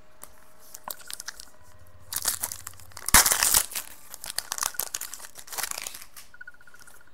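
Foil wrapper of a Panini Contenders football card pack being torn open and crinkled by hand, the tearing loudest about three seconds in.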